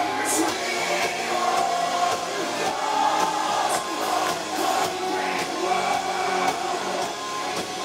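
Melodic death metal band playing live: distorted electric guitars, drums with cymbals, and sung vocals, running on without a break.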